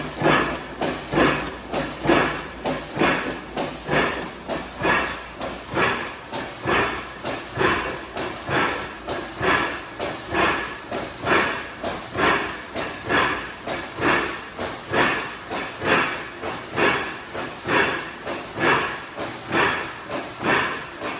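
IMA CD180 filling machine running, its pneumatics giving regular hissing bursts about two a second as it cycles.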